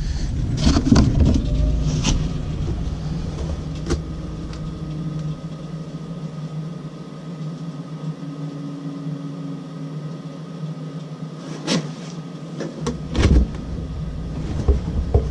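Lennox EL296 gas furnace running at start-up: a steady motor hum with a low rumble that drops away about five seconds in and comes back near the end, plus a few sharp clicks.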